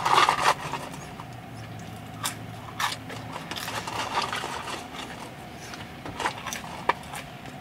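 Close-miked chewing of French fries, with a cluster of rustling and clicks right at the start as fries are taken from the paper cup, then scattered wet mouth clicks and smacks.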